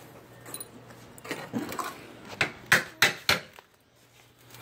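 Hand tools knocking and prying at an old window frame being taken out: some scraping, then about four sharp knocks in quick succession in the middle.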